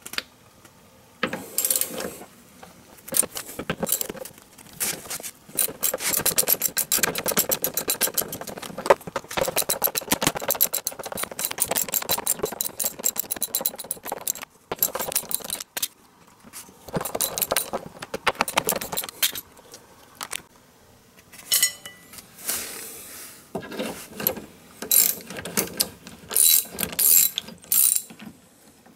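Ratchet wrench clicking in quick runs with short pauses, the longest lasting about eight seconds, as the 17 mm bolts holding the DeLorean's front sway bar bushing bracket are loosened.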